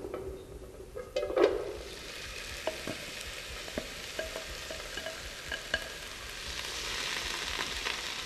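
Chopped onion sizzling as it fries in hot bacon fat in a frying pan, stirred with a slotted spatula that scrapes and taps the pan. A clatter about a second in; the sizzle grows louder near the end.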